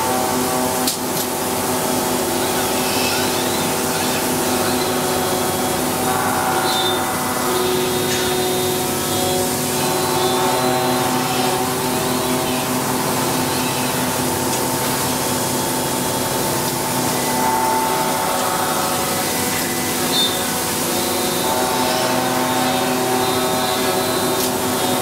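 Robotic CNC machining cell running: a Yaskawa Motoman robot arm's servo drives whining in several steady tones that shift as the arm moves, over a steady hiss. A sharp click sounds about a second in and another near 20 s.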